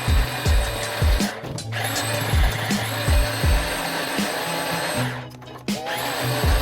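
Background music with a steady beat of about two low thumps a second over a bass line.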